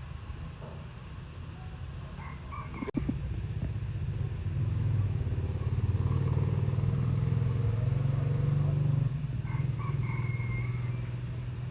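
A rooster crowing twice, about two seconds in and again near the end, over a steady low engine rumble that grows louder in the middle and drops off suddenly, as of a passing motor vehicle.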